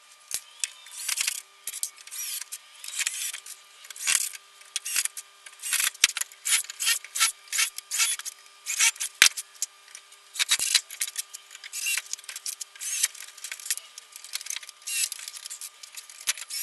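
A hand tool scraping on cedar wood in short, irregular strokes, a few a second.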